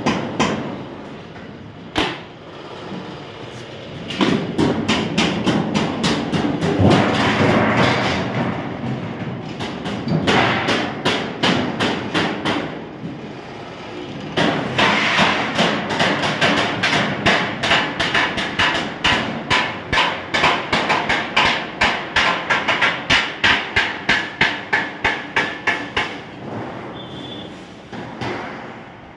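Hammering on stainless-steel sheet metal: repeated blows, coming in a quick, even run of about two to three a second through the second half.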